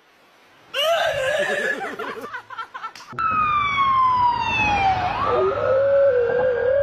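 A siren wailing, its pitch sliding down and then sweeping back up, while a husky howls along in a lower, wavering tone. Before it, a short stretch of warbling, pitched sound breaks off abruptly about three seconds in.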